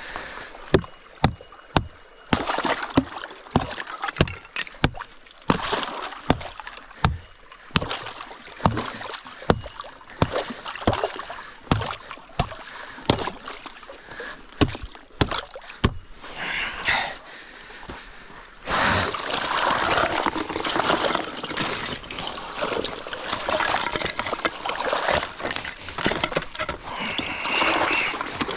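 Hatchet chopping through creek ice, a long run of sharp blows, one or two a second. From about two-thirds of the way in, the ice is broken open and chunks are pulled out, with water sloshing and ice scraping.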